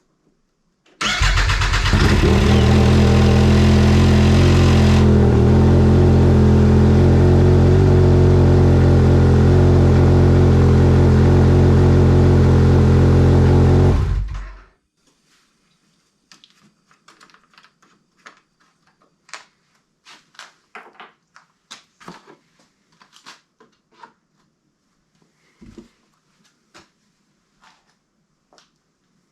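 Arctic Cat XF7000 snowmobile's three-cylinder four-stroke engine starting about a second in and running steadily for around thirteen seconds, then shut off. It is being run briefly to work freshly added chaincase oil through before the level is rechecked. Scattered light clicks and knocks follow.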